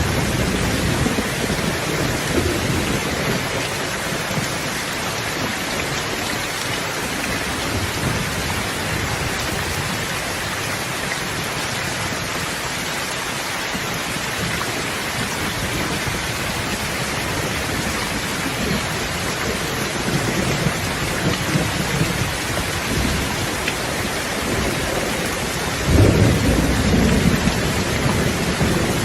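Steady rain hissing, with low thunder rumbling at the start and a louder roll of thunder breaking in near the end.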